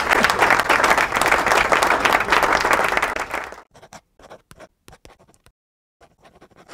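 Audience applauding after a piano piece, dense clapping that thins out about three and a half seconds in to a few scattered claps.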